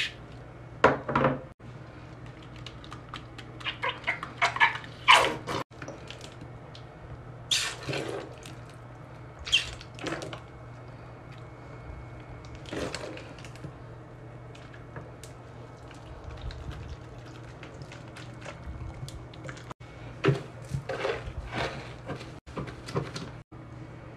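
Cleaning products being squirted, poured and sprinkled into a sink: a series of short, separate squirts, splashes and taps a second or more apart, with a quieter stretch in the middle.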